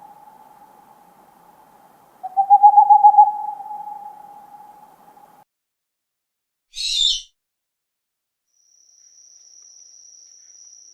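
Owl hooting: the tail of one hoot dies away, then a single long, wavering hoot starts about two seconds in, fades and cuts off suddenly. After a pause comes a short high hiss, then a thin, steady high-pitched tone for the last couple of seconds.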